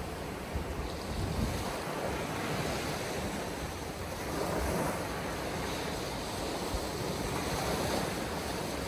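Surf breaking on a beach with strong wind buffeting the microphone: a steady rushing noise with a low rumble that swells and eases a little.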